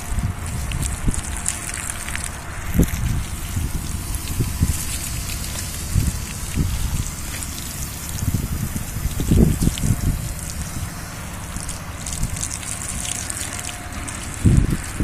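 Garden hose spraying water onto a horse's coat, with steady splashing and trickling. Irregular low thumps run under the water sound.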